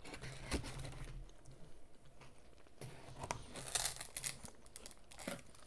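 Close-miked chewing and mouth sounds from eating a Korean corn dog, with scattered crunches and clicks. About three and a half to four seconds in comes a denser burst of rustling and crunching as a corn dog is lifted out of its cardboard box.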